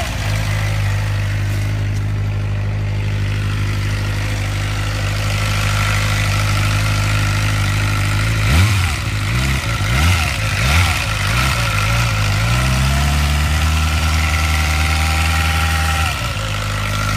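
A 2007 Suzuki GSX-R600's inline-four engine idles, is blipped a few times about halfway through, and is held at a higher steady speed before dropping back near the end. A thin, steady high whine runs over the engine note. The owner says the whine started after the bike fell over and places it in the top end on the right side.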